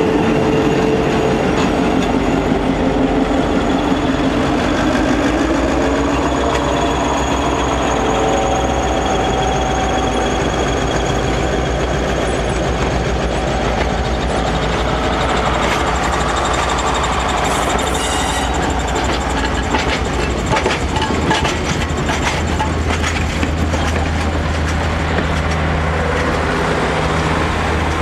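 EMD GP7 diesel locomotive, with its 16-cylinder 567 two-stroke engine, running steadily as it passes close by. The engine drone fades and the passenger cars roll past behind it, their wheels clicking over the rail joints.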